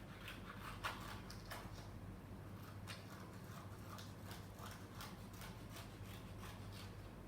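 Scissors cutting a paper drawing into small square puzzle pieces: a string of irregular short snips and clicks.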